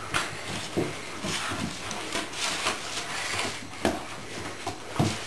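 Border Collie puppy playing tug with a rope toy on a wooden floor: scrabbling paws and scuffling, with irregular knocks and thumps, the loudest about five seconds in.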